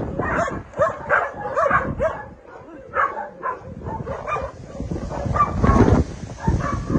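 A pack of dogs barking and yipping at play, short overlapping barks that come thick at first and thin out after about two seconds.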